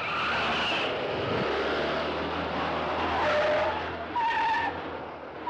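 Citroën 2CV taken fast through bends, its tyres squealing in several short screeches over the low hum of its engine.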